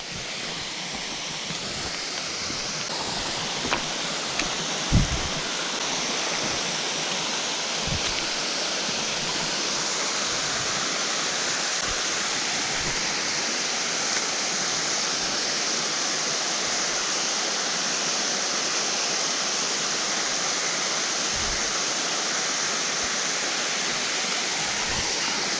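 Waterfall rushing steadily, running full after heavy rain; the rush fades in over the first second. A couple of soft low thumps come about five and eight seconds in.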